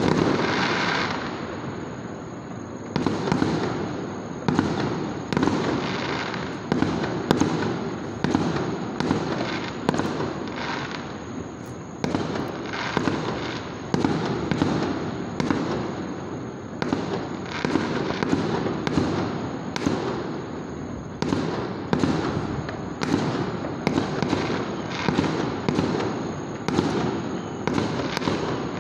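Aerial fireworks: shells bursting one after another, a big bang at the start, then after a short lull a steady run of bangs about one or two a second, each trailing off in echo.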